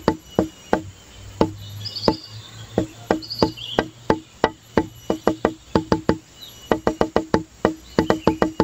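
Background music of rapid wood-block taps, about seven a second, all at one pitch. The taps thin out about a second in and pause briefly about six seconds in, with faint high chirps over them.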